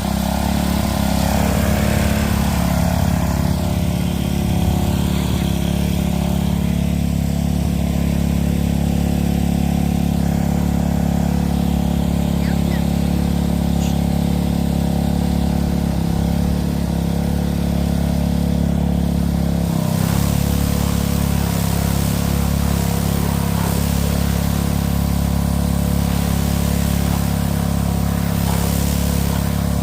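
Small gas engine of a Craftsman pressure washer running steadily under load, with a brief shift in its note about twenty seconds in.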